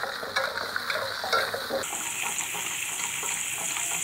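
Garlic cloves and shallots sizzling in a little oil in a stainless steel wok while a metal spatula stirs and scrapes against the pan. About two seconds in, the scraping mostly stops and a steady sizzle carries on. The aromatics are being sautéed until fragrant.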